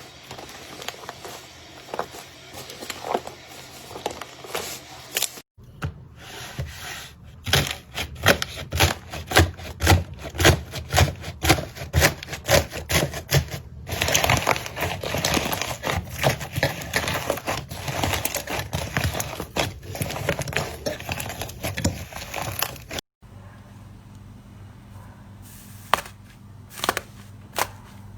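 Hands squeezing and poking slime, making a rapid run of sharp clicking pops. The pops grow denser and louder in the middle, and the run is broken twice by short cuts between clips.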